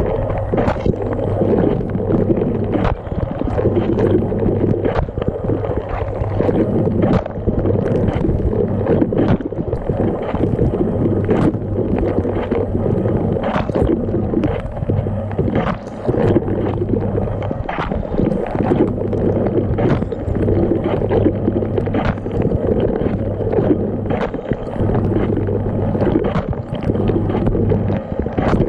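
Dishwasher running, heard from inside the tub: water spraying and sloshing, with a steady low hum underneath. Sharp splashes of water strike again and again, often more than once a second.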